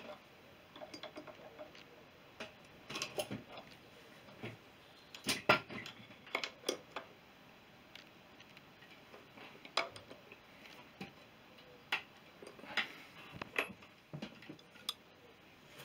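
Irregular metallic clicks and clinks of spanners working on a motorcycle front wheel hub nut, the loudest cluster about five seconds in.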